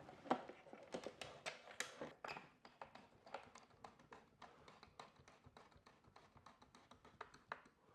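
Small screw being worked loose with a screwdriver: faint, irregular light clicks and ticks from the tool on the screw and the metal plate.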